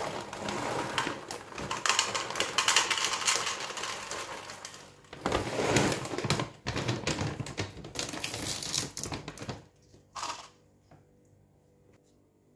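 Dry cat kibble pouring from a plastic bag into a plastic measuring cup: a dense rattle of pellets hitting the cup, mixed with the bag crinkling. The pouring eases off about five seconds in, picks up again, and stops just before ten seconds, followed by one brief rustle.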